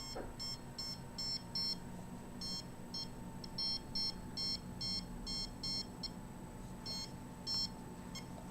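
Handheld microwave radiation detector beeping its alarm: short high-pitched beeps at an uneven rate, often in quick pairs, with a pause about six seconds in. The meter is alarming at a high reading.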